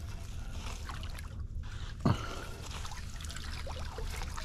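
Water trickling and dripping as a magnet-fishing haul, a board stuck to the magnet, is pulled up out of a creek on a rope. There is one brief louder sound about two seconds in, over a steady low rumble.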